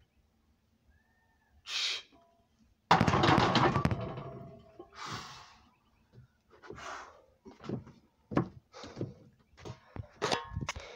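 Heavy barbell loaded with iron plates racked onto the steel uprights of a bench-press bench: a sudden loud metallic clang with the plates rattling and ringing, just after a sharp exhale from the lifter. Breathy exhales and scattered knocks and rustles follow.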